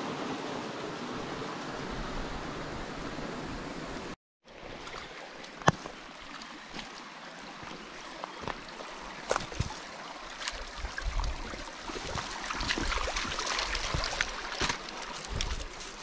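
A shallow creek running over stones. After a cut about four seconds in, a dog wades through the creek, making splashes and sharp clicks and knocks on the stones, with one loud knock shortly after the cut.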